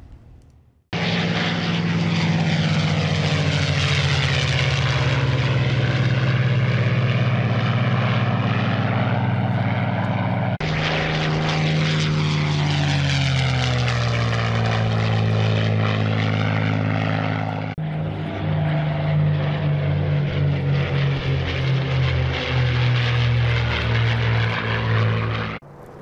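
P-51 Mustang's Packard Merlin V-12 engine in flight, a loud steady propeller-engine drone that starts about a second in. It breaks off abruptly twice as separate passes follow one another, and the last pass wavers in loudness.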